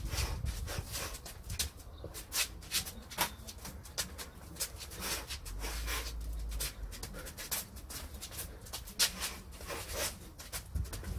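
A shadowboxer's short, sharp exhalations with his punches, coming several a second in irregular bunches over a low rumble.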